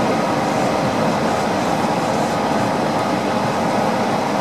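Steady running noise of a Yurikamome rubber-tyred automated guideway train, heard from inside the cabin as it rolls along the elevated concrete track.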